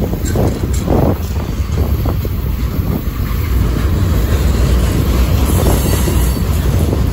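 Freight cars rolling slowly past close by, with steel wheels rumbling steadily on the rails and a few clacks in the first couple of seconds.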